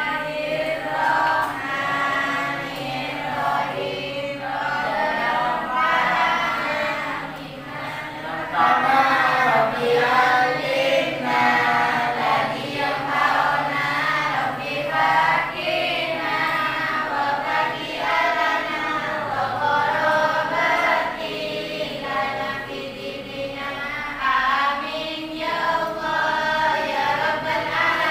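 A class of students chanting a closing prayer together in unison, in a continuous sing-song recitation that fades out at the very end.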